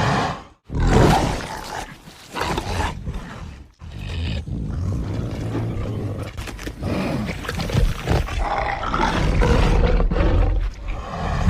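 Carnotaurus movie-dinosaur sound effects: a loud roar cuts off about half a second in, then a second roar follows. A long, low rumbling call then builds toward another loud roar near the end.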